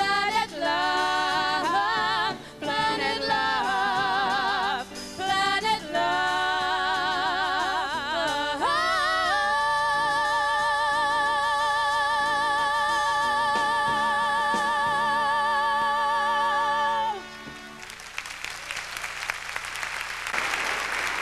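Two women singing a duet with a live band, their voices wavering in runs and then holding one long vibrato note for about eight seconds as the song ends. The music stops suddenly and audience applause follows.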